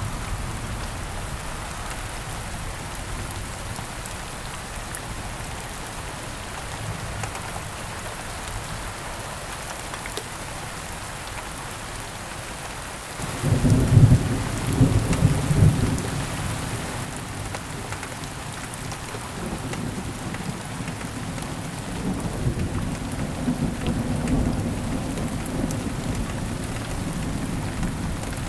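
Steady heavy rain with a clap of thunder about halfway through, rumbling loudest for a few seconds, then rolling on more quietly under the rain.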